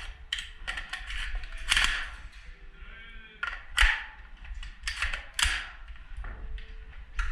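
Airsoft guns firing, a string of sharp, irregularly spaced snaps, about nine in all with a gap in the middle, over a steady low rumble.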